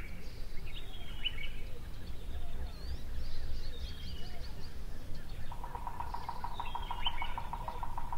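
Wild birds chirping and calling with short, high, sweeping notes. About two-thirds of the way through, a rapid, even trill starts and keeps going, over a steady low outdoor rumble.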